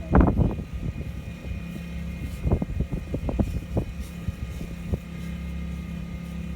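Westinghouse iGen2500 inverter generator's four-stroke engine running at a steady speed with eco mode off, a low steady hum. Gusts of wind hit the microphone at the start and again briefly a few seconds in.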